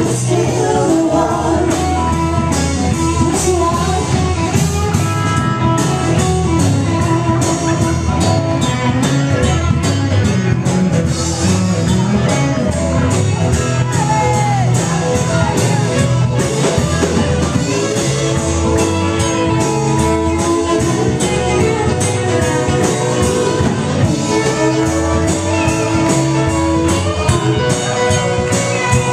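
Live rock band playing loud, with electric guitars, bass and drums driving a steady beat and a voice singing over them.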